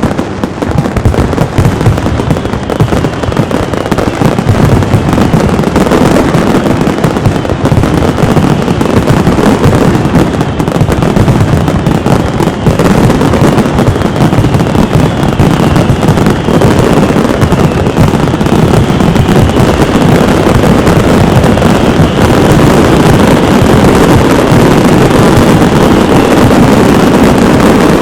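Castillo aerial fireworks in a dense, unbroken barrage: shells bursting and crackling over one another with no gaps, and faint whistles gliding down in pitch, growing steadier and louder toward the end.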